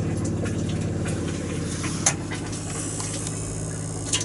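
A small electric motor in the motorhome's water and heating system running with a steady, rapidly pulsing hum, with a sharp click about two seconds in and another near the end.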